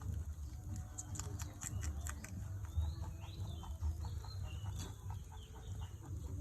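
Rabbits chewing and crunching their food: a scatter of short, crisp clicks. Faint short bird chirps sound in the background.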